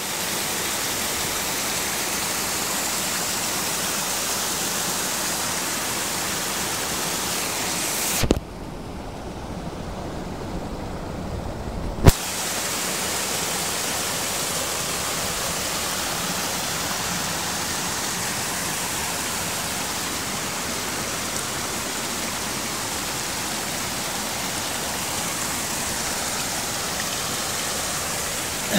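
Steady rushing and splashing of spring water spouting from a rock crevice and falling into a rocky stream pool. About eight seconds in, the water sound goes dull and a low rumble takes over for about four seconds, starting and ending with a knock.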